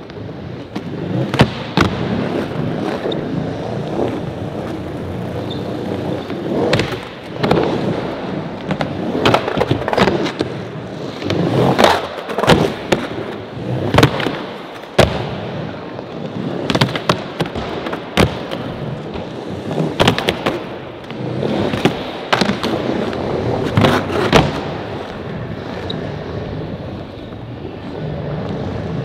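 Skateboards rolling over plywood ramps, with sharp clacks from pops, landings and grinds every second or two.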